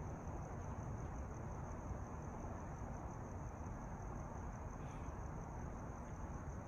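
Faint evening outdoor ambience: crickets trilling in one steady high, unbroken tone over a low, even background rumble.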